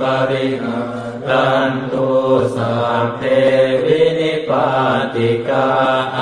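A Buddhist monk chanting in Pali, a steady recitation on a near-level pitch in phrases separated by brief pauses.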